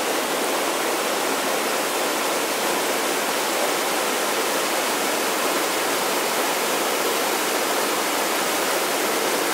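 River water rushing and splashing over boulders and small cascades in a rocky gorge, a steady, loud rush of white water.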